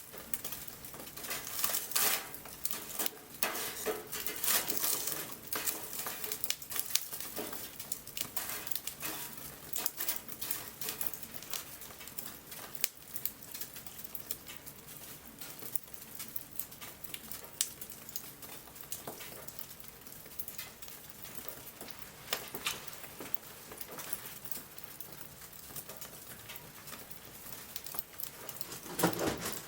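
Wood bonfire crackling, with frequent sharp pops and snaps over a steady hiss, in light rain. A louder run of pops comes near the end.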